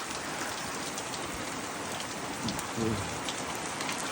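Heavy rain coming down hard and steady, with individual drops hitting nearby surfaces.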